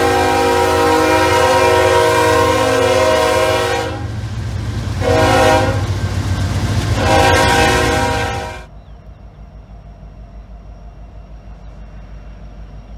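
A diesel locomotive's multi-chime air horn sounding over the rumble of its engine: a long blast that ends about four seconds in, a short blast, then a longer one, which matches the close of a grade-crossing signal. Just after the last blast the sound drops abruptly to a much quieter low, pulsing rumble.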